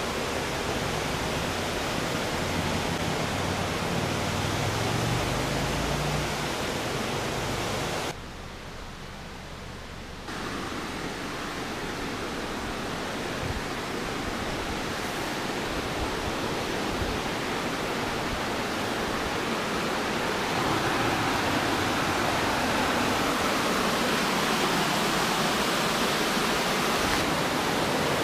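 Stream water rushing steadily over a rocky bed, with a short quieter stretch about eight seconds in and louder near the end.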